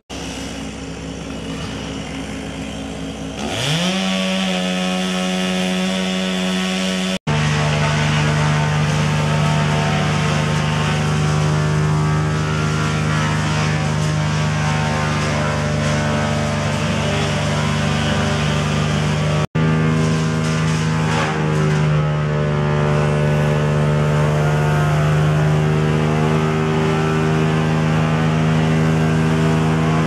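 Two-stroke chainsaw running near full throttle, its pitch rising as it revs up about three and a half seconds in, then holding a steady high pitch while it cuts. The sound drops out for an instant twice.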